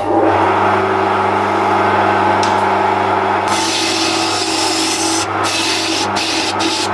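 Wood lathe starting abruptly, then running steadily with a low motor hum. A handful of wood shavings is rubbed against the spinning pine-and-walnut vase to burnish it, giving a hissing rub.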